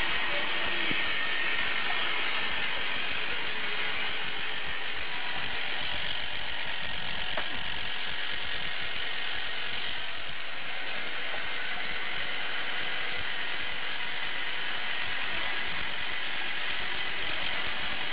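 Tempomatic rotisserie spit motor, a small electric geared motor, running steadily with a continuous whir.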